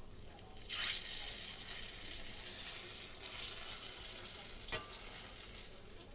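Cherry fried pies frying in hot grease in a pan. The sizzling flares up suddenly a little under a second in and keeps going loud and crackling, with a single light knock about five seconds in.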